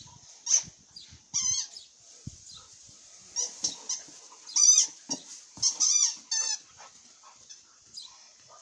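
A dog playing with an orange toy: a series of short, high, wavering squeaks, loudest about five to six seconds in, over a faint steady high hiss.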